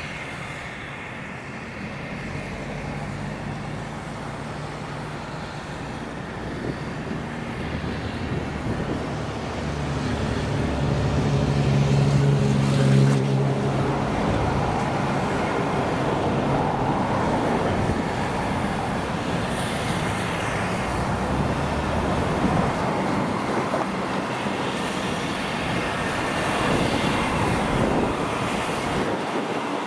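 LNER J27 0-6-0 steam locomotive drawing a train of coaches slowly into a station, growing louder as it approaches. A low steady hum in the first half is loudest about twelve seconds in.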